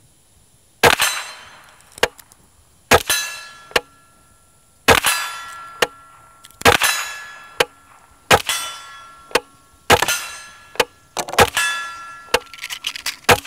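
Integrally suppressed Henry AR-7 .22 semi-auto rifle firing a string of CCI Mini-Mag rounds at a steel gong. Each muffled shot is followed almost at once by a metallic clang and ringing from the hit gong, repeating roughly every one and a half to two seconds.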